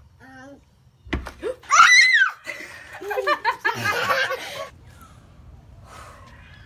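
A dull thump about a second in, followed by a high squeal and bursts of laughter.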